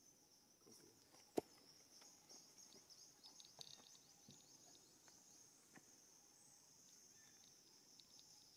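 Faint, steady high-pitched insect chorus, with one sharp click about a second and a half in and a few softer taps.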